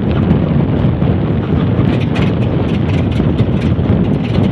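Antique biplane's engine running steadily on the ground, its propeller turning.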